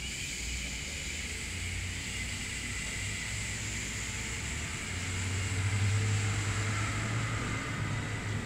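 A long, steady unvoiced 'shhh' exhale: the sub-vocalized wind sound of the Taoist Xu (liver) healing sound, breath hissing between tongue and slightly rounded lips with no voice. A low hum sits underneath.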